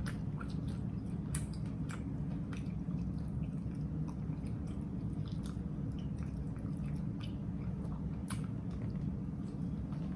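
Close-miked chewing of a mouthful of chopped grinder sandwich: scattered wet mouth clicks and soft crunches of lettuce and pickle, over a steady low hum.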